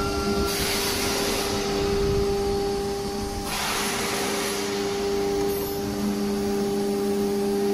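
CNC router's spindle motor running with a steady whine, with two short bursts of hiss about half a second and three and a half seconds in.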